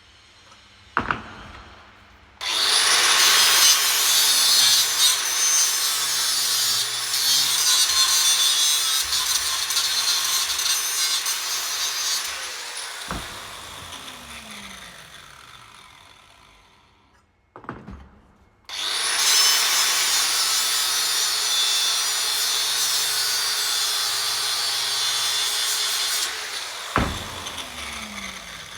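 Power grinder cutting into the steel handle to widen the slot for the new scraper head, in two runs of about ten and seven seconds. Each run ends with the motor winding down in a falling whine.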